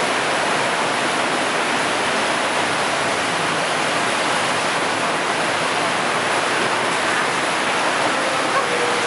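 Underground cave stream rushing and cascading over rocks in a steady, unbroken rush of water.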